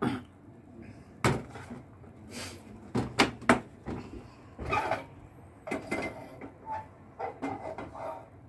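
Kitchen handling noise at the stove: sharp knocks and clatters, one about a second in and three in quick succession around three seconds in, followed by lighter clinks and shuffling.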